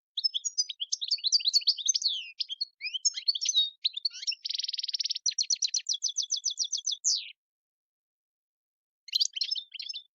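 European goldfinch singing: fast twittering phrases, a short buzzy trill about halfway through, then a quick run of evenly repeated notes ending in one falling note. After a gap of almost two seconds comes another brief twitter near the end.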